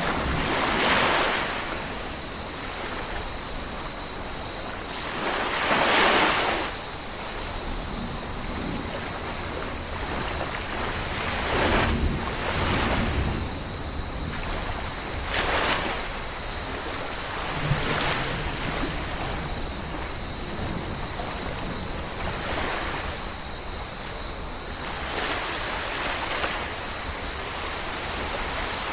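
Ocean waves breaking and washing onto a tropical beach: a steady surf hiss, with a louder wave surging in every few seconds, the biggest about six seconds in.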